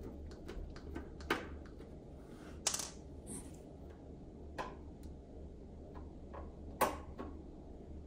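Screwdriver backing screws out of the back panel of an Onkyo AV receiver's metal case: scattered light clicks and taps, with a few louder knocks.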